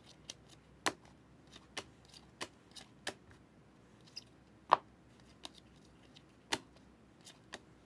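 Optic football trading cards being handled: an irregular string of short, sharp clicks and taps as the cards are flipped and set down, with the loudest snap a little past the middle.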